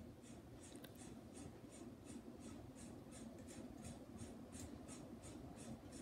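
Ceiling fan running, with a faint, steady scratchy ticking about four times a second. The owner hears it as a vibration from one of the fans.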